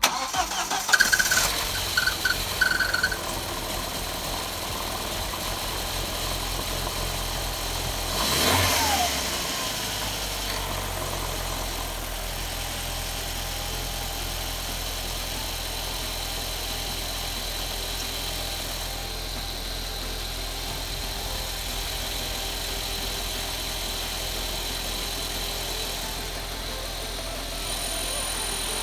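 Audi A4 engine starting and settling into a steady run, with one brief rev about eight seconds in. It has just been fitted with a new intake manifold gasket and crankcase breather pipe to cure a misfire thought to come from a vacuum leak.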